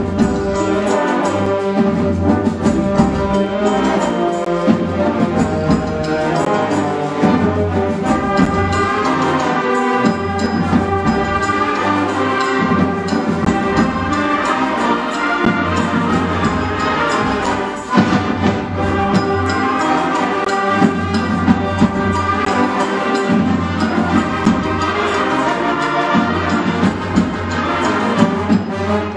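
Full symphonic wind band of brass, woodwinds and percussion playing a loud Latin mambo, with a short break about eighteen seconds in before the whole band comes back in.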